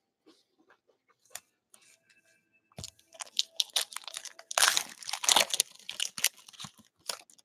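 Foil wrapper of a Panini Prizm basketball retail pack being torn open and crinkled by hand. Faint clicks at first, then dense crackling starting about three seconds in, loudest in the middle.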